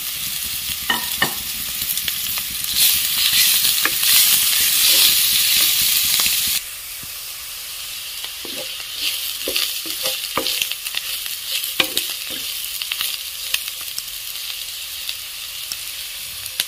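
Sliced mushrooms sizzling in hot mustard oil in a frying pan as they are stir-fried, with the spatula scraping and clicking against the pan. About six and a half seconds in the sizzle abruptly drops to a quieter level.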